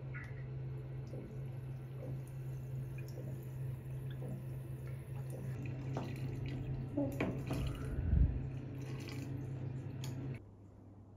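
Water dripping and splashing in a bathtub over a steady low hum, with small clicks and a low thump about eight seconds in. The hum and water noise cut off suddenly near the end.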